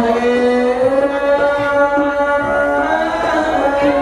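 A man singing a Khmer traditional wedding song through a microphone, holding long notes that bend slowly in pitch, with instrumental accompaniment behind him.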